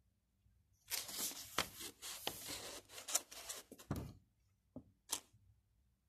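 A paper instruction leaflet rustling and crinkling as it is handled and turned over, with a dense crackle lasting about three seconds from about a second in. Two short crackles follow near the end.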